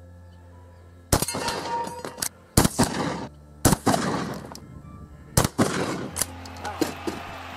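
Four loud 12-gauge shotgun slug shots, a second or so apart, each trailing off in a long echo, with a few fainter sharp cracks between them.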